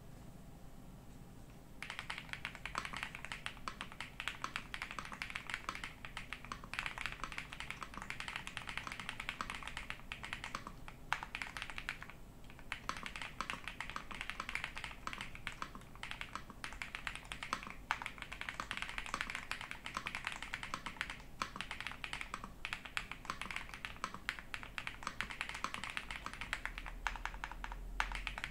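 Continuous fast typing on an Ajazz AK820 Pro mechanical keyboard fitted with Gift switches: a dense stream of key presses that starts about two seconds in and breaks off briefly twice.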